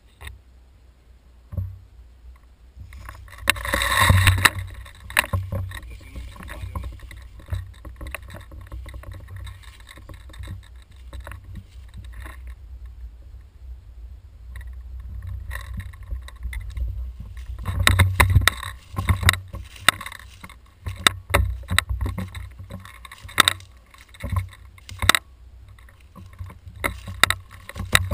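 Footsteps crunching through dry leaf litter, with irregular knocks and rustles of the gun-mounted camera being handled, over a steady low rumble.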